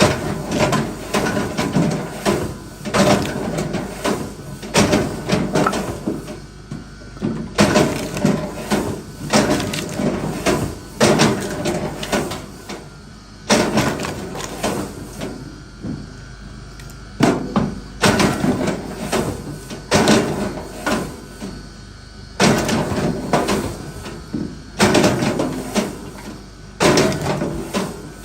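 Repeated wooden knocks and clatter, as of firewood being handled and split. The knocks come in dense bursts of a few seconds, broken by short pauses.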